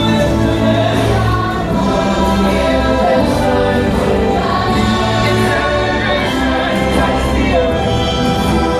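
Orchestral show music with a choir singing over strong sustained bass notes, played loud over outdoor speakers.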